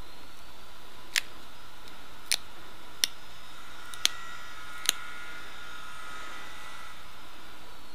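Pressure flaking a stone arrowhead: five sharp clicks, irregularly spaced about a second apart, as small flakes pop off the edge under a pointed pressure flaker.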